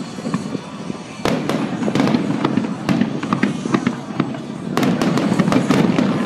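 Fireworks display: aerial shells bursting in quick succession with booms and crackling. There is a loud crack about a second in, and a denser barrage from about five seconds in.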